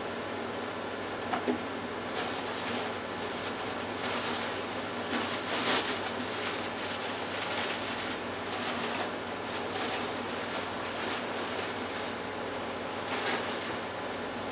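Steady kitchen background hiss with a low hum, broken by faint rustling and a few light clicks.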